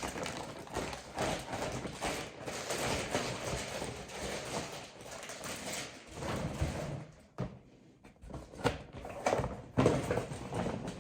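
Packaging rustling and crinkling as items are handled, with irregular clicks and knocks.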